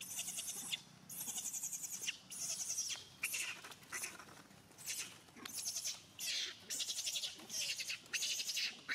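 Young pig-tailed macaque screaming in distress after being attacked by a larger monkey: a rapid series of shrill, rasping screams, each under a second long, with short breaks between them.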